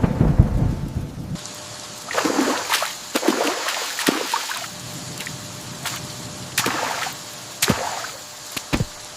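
Thunderstorm: a low thunder rumble at the start, then steady heavy rain with a scatter of sharp cracks.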